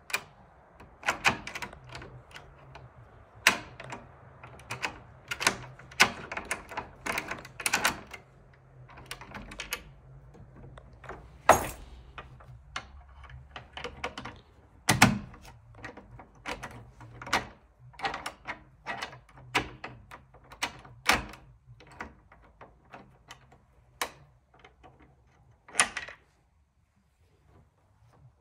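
ERA Fortress mortice sashlock clicking and clunking as its lever handle, latch and key are worked back and forth, in irregular sharp knocks with two heavier clunks about 11 and 15 seconds in. The lock's case cap has come loose, putting the curtain and lever pack out of alignment so the key jams and the bolt barely throws.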